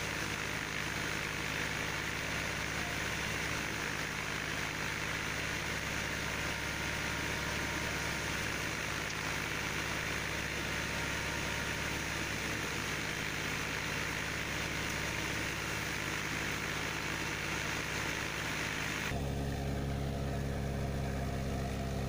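Tractor-driven wheat thresher running steadily: a constant engine hum under a steady hiss of the threshing drum and blower. About three-quarters of the way through, the hiss drops and the low engine hum becomes stronger.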